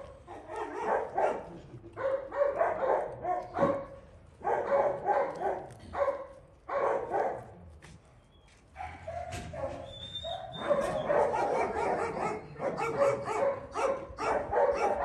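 Dogs barking in quick repeated bursts, with a short lull about eight seconds in.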